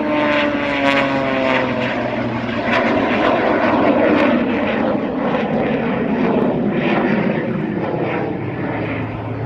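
Jet Waco taperwing biplane's engine running under power as it climbs through aerobatics. Its note slides down in pitch over the first two seconds, then gives way to a rougher rushing sound, loudest about four seconds in.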